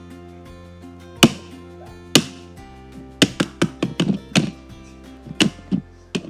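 Sharp chopping taps, like a knife striking a cutting board: two single strikes, then a quick run of about eight, then three more near the end, over light background music.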